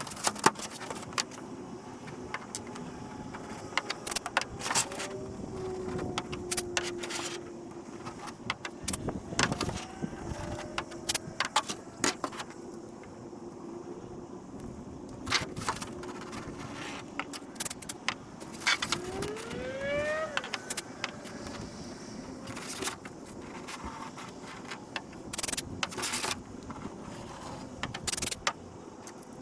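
Workbench clatter of hard 3D-printed plastic parts and tools being handled: scattered clicks, taps and knocks over a low steady hum. A few short tones slide in pitch, one rising sharply about twenty seconds in.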